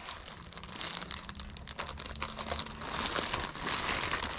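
Packaging crinkling as an item is handled, a dense run of small crackles that grows louder about three seconds in.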